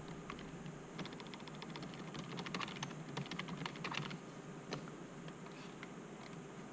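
Typing on a computer keyboard: a quick run of keystrokes from about a second in until about four seconds, then a few separate clicks.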